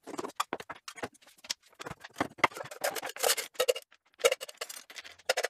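Rapid, irregular clicking and clattering of small metal parts (screws, nuts, washers and metal plates) being picked up and moved around on a workbench. Some knocks ring briefly.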